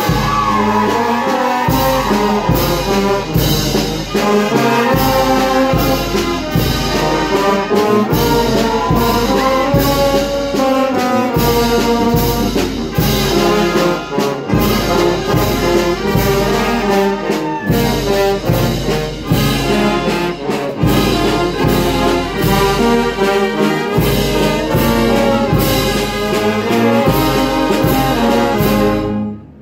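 Village brass band playing a bolero: trumpets and trombones carry the melody over a stepping low brass bass line, with a regular percussion beat. The band breaks off abruptly just before the end.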